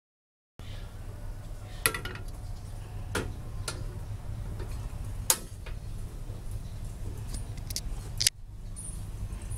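Aluminium wok and pots clinking and knocking as they are handled on a metal table: a handful of sharp clanks, the loudest about two and five seconds in, over a steady low hum.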